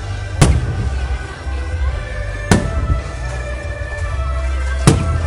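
Aerial firework shells bursting: three sharp bangs about two seconds apart, over continuous music with a heavy bass.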